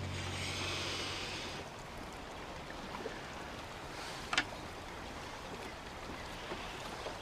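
Faint, even background hiss of scene ambience, with a low hum and a brighter hiss that stop about a second and a half in, and a single sharp click a little past four seconds.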